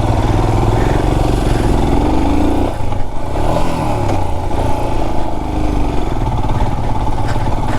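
Royal Enfield Himalayan motorcycle engine running as the bike is ridden off-road, the revs rising and easing off a few times.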